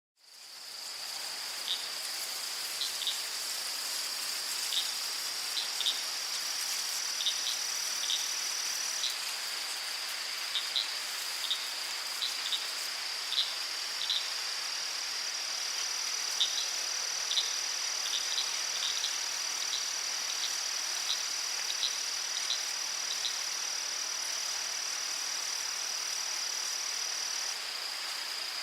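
Crickets trilling steadily at a high pitch, fading in at the start over a soft, even hiss. Short high chirps are scattered through the trill from about two seconds in until around two-thirds of the way through.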